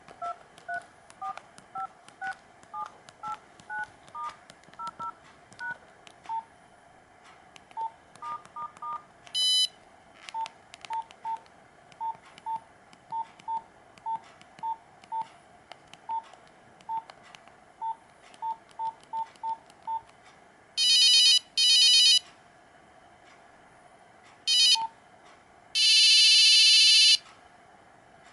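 Nokia 5125 mobile phone beeping: a long run of short electronic beeps, stepping up and down in pitch at first, then repeating at one pitch a couple of times a second. Later come a few loud, harsh buzzy tones, two short ones about two-thirds of the way through and a longer one near the end.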